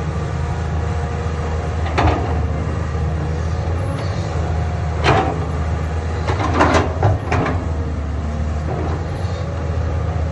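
Caterpillar 320D excavator's diesel engine running steadily under load, with several sharp clanks and knocks from the machine working: one about two seconds in, another about halfway, and a quick cluster a little after.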